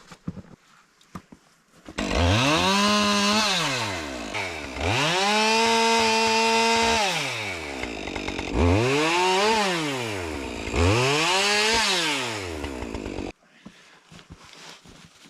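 Chainsaw cutting smaller branches from a fallen tree. It starts about two seconds in and revs up to full speed four times, dropping back toward idle in between: two longer held cuts, then two short rises and falls. It cuts off suddenly near the end.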